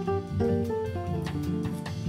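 Background music led by a plucked guitar, with light percussion.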